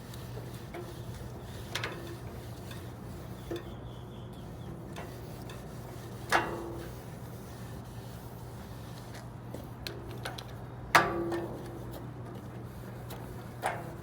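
Metal parts of a Pastemate 62 stainless-steel wallpaper pasting machine clinking and knocking as they are handled, with a few light clicks and two louder metallic clanks that ring briefly, about six and eleven seconds in. A steady low hum runs underneath.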